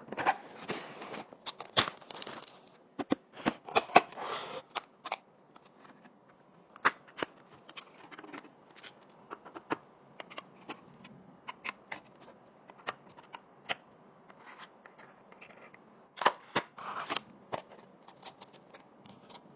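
PC parts being handled during a build: irregular sharp clicks and snaps with short bursts of rustling. It is busiest near the start and again about three-quarters of the way through, and sparser in between.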